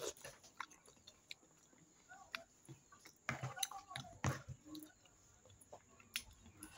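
A person chewing a mouthful of mocotó (cow's foot stew), with soft mouth sounds and scattered light clicks of a fork against the bowl, busiest about halfway through.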